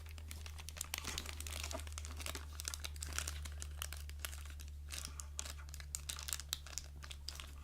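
Packaging crinkling and crackling in small irregular bursts as a blind-bag toy package is worked open by hand, over a steady low hum.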